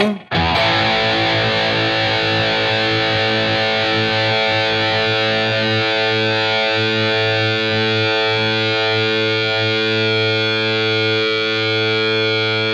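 Epiphone Prophecy SG electric guitar through heavy overdrive: one chord struck just after the start and left to ring, holding steady with almost no fade, showing plenty of sustain.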